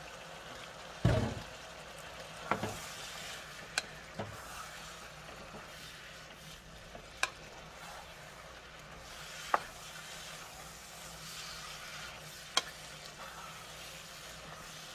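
Shrimp, sliced sausage and diced peppers and onions sizzling in a frying pan as a wooden spatula stirs them. The spatula knocks against the pan now and then, with a dull thump about a second in.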